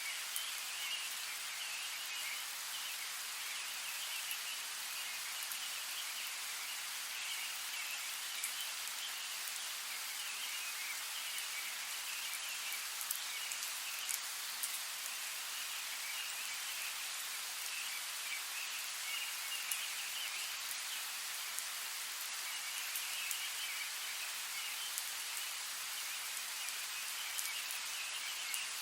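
Steady rain falling, an even hiss with scattered sharp drop ticks. A higher rippling chirring chorus runs underneath, coming and going in stretches.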